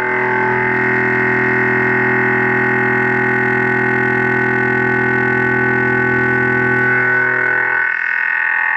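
Indexable carbide-insert weld preparation mill face-milling 4140 pre-hardened steel at 2500 RPM, a steady, loud, many-toned singing whine from the cut. Near the end the lower tones fall away as the cutter leaves the block.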